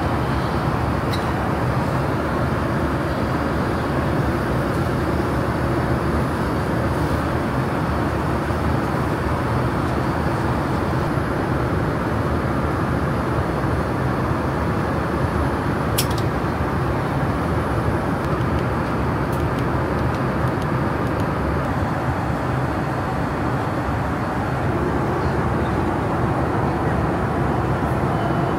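Steady cabin noise of a Boeing 787 airliner, an even rush of air and engine noise that does not change. A sharp click stands out about sixteen seconds in.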